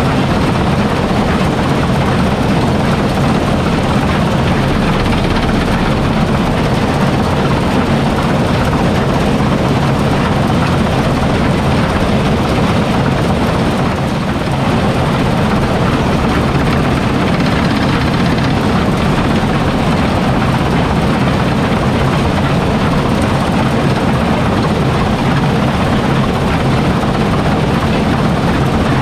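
Heavy farm machinery running steadily under load during a bean harvest: a deep engine drone with a dense rushing mechanical noise over it, dipping slightly for a moment about halfway through.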